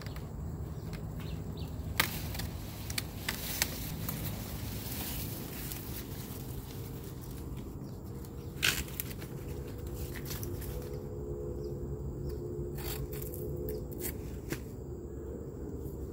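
Sugar cane being cut and handled by hand: a few sharp cracks and snaps of cane stalk and dry leaves, the loudest about nine seconds in, over a steady low hum.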